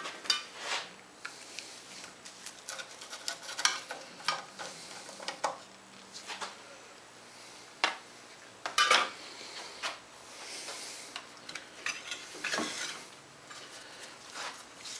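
Scattered clinks, knocks and rubbing of metal parts being handled on a workbench as an outboard motor's lower unit gear case is worked on and lifted out of a wooden hand-screw clamp.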